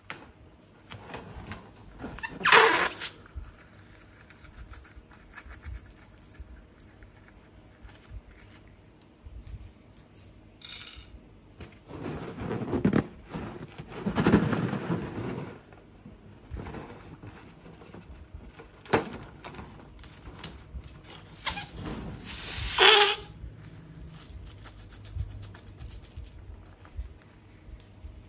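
Slime being handled and squeezed out of balloons and piping bags: irregular wet squelches and crinkly rubbing, with a longer squishing stretch in the middle and two short, sharper squelches, one early and one near the end.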